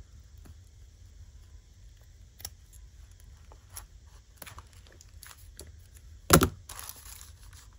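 Scissors snipping through fringed fabric trim, a few quiet separate cuts. About six seconds in there is a single loud thump, then brief rustling.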